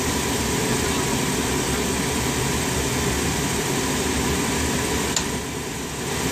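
Steady hum and hiss of running equipment in a jet cockpit with a thin steady tone, as a pitot-static test set drives the altimeters through a fast simulated descent. A single sharp click about five seconds in, after which the noise drops a little for about a second.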